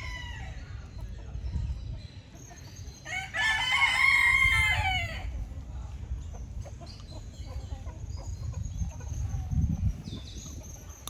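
Rooster crowing: one long, loud crow about three seconds in, rising and then falling in pitch, with the end of a fainter crow just at the start.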